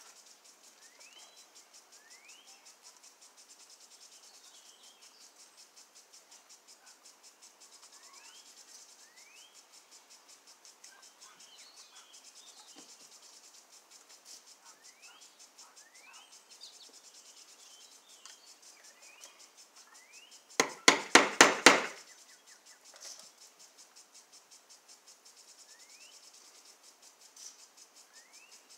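Steady high insect trilling with short rising bird chirps every couple of seconds. About 21 seconds in, a quick run of about seven sharp knocks, the loudest sound.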